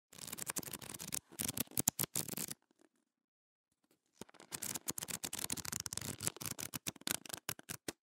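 Pages of a paper book riffled rapidly, a dense run of flicks and rustling, in two passes: one of about two and a half seconds, then after a short pause a longer one of about four seconds.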